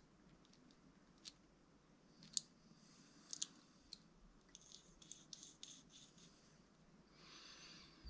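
Faint, scattered clicks and light rubbing of small differential parts being handled on a bench. The sharpest click comes about two and a half seconds in, and a quick run of lighter ticks follows a couple of seconds later.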